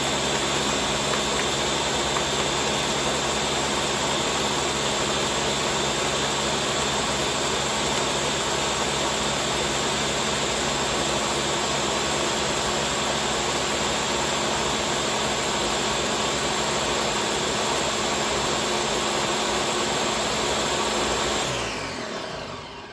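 Countertop blender motor running steadily on its high setting, blending a green smoothie with ice. The motor winds down and stops near the end.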